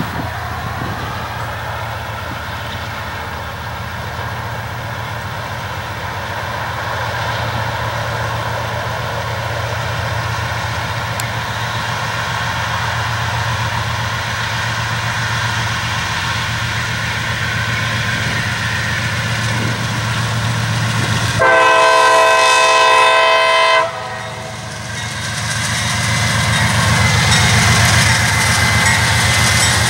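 CSX diesel-electric freight locomotives running and working as they approach, the drone growing louder. About two-thirds of the way through, one loud blast of the lead unit's air horn sounds for a little over two seconds, then the engines run on.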